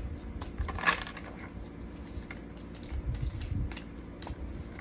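A deck of tarot cards being shuffled overhand by hand: an irregular run of quick, soft card slaps and slides, with a sharper one about a second in.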